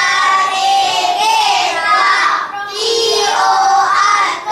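A small group of young children singing together in unison, in drawn-out phrases with a short break about halfway through.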